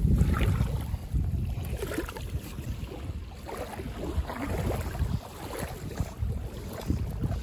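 Wind buffeting the microphone in uneven gusts, with small waves lapping in shallow water.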